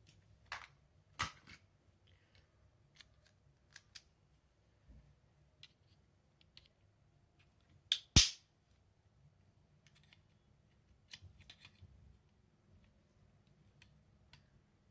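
Scattered small clicks and taps of steel screwdrivers against plastic as a Xiaomi pocket speaker is pried apart, with one loud sharp click about eight seconds in as a long screwdriver is forced into the speaker's end cap to push the inner assembly out.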